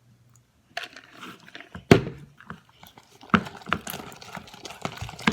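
Slime being mixed and squished in a bowl: a run of wet, sticky clicks and pops, with one sharp knock about two seconds in.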